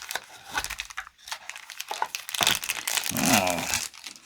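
Packaging crinkling and rustling, with some tearing, as a folding knife is unwrapped by hand; an irregular run of crackles that grows busier and louder in the second half.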